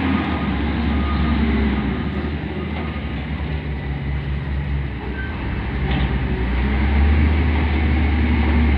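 Diesel engine of a Kalmar reach stacker working under hydraulic load as it lifts a tank container off a rail wagon: a steady low drone that swells louder over the last few seconds.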